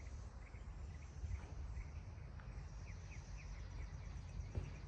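Outdoor ambience: a steady low rumble with short, high chirps of small birds now and then.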